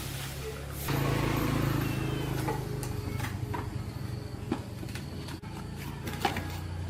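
Two-stroke Stihl chainsaw engine running steadily at idle, a little louder from about a second in, with scattered light clicks and knocks.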